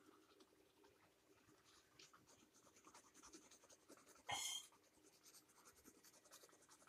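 Faint scratching of a pencil shading on paper, with one brief, louder squeaky sound a little over four seconds in.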